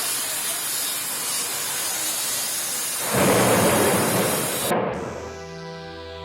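Steady hiss of heavy rain, with a louder, deeper rumbling surge about three seconds in. Near the end the sound cuts off abruptly and background music with held tones takes over.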